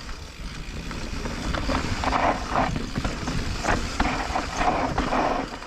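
Mountain bike rolling down a dirt trail: tyre noise on the dirt with scattered knocks and rattles from the bike, getting louder about two seconds in.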